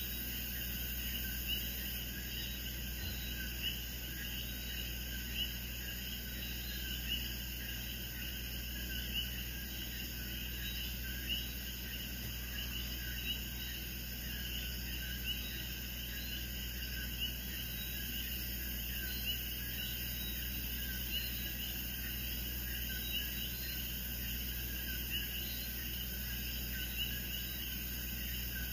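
Faint, steady chorus of small chirping night animals, with a soft louder call about every two seconds, over a low hum.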